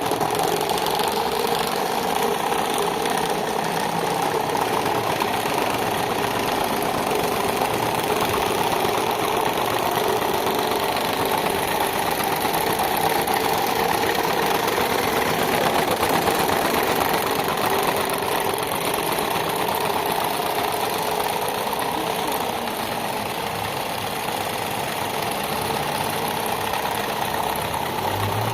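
Electric fan with a broken blade running steadily, a loud even motor-and-blade whir that switches on just before and does not let up.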